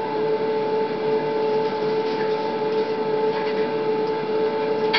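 Steady electrical hum and hiss of the recording, two held tones over a background hiss, with a single click at the very end.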